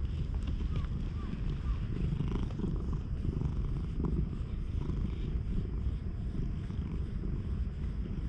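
Stray brown tabby cat purring steadily close to the microphone, a low continuous rumble, as it is rubbed under the chin: a contented purr.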